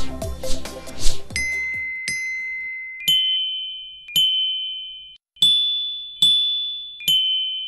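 Children's toy xylophone with metal bars struck one note at a time with ball-tipped mallets. Seven ringing notes about a second apart, at a few different pitches, make a slow simple tune, each note fading before the next. For about the first second, background music with a beat plays, then cuts off.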